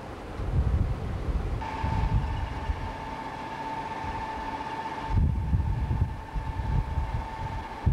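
Diesel locomotive sound: a steady high whine sets in abruptly about a second and a half in and holds, over gusts of wind buffeting the microphone.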